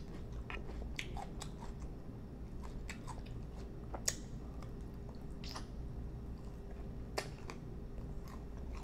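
Biting and chewing lemon pepper chicken wings: a string of short, sharp mouth clicks and small crunches about once a second, over a steady low hum.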